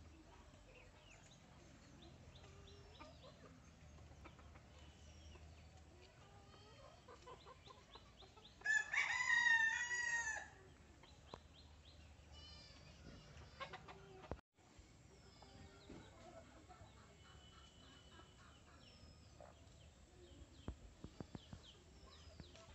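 A rooster crows once, a loud drawn-out cock-a-doodle-doo about nine seconds in, with faint bird chirps around it.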